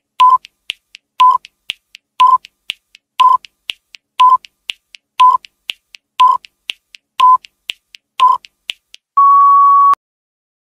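Countdown timer sound effect: a short beep once a second, nine times, with faint ticks between, ending in one longer, slightly higher beep as time runs out.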